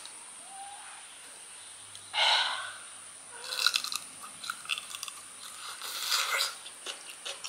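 Close-up crunching bites and chewing of a firm, peeled kedondong (ambarella) fruit, in crisp clusters starting about three and a half seconds in and loudest near the end. A short breathy rush of noise comes about two seconds in.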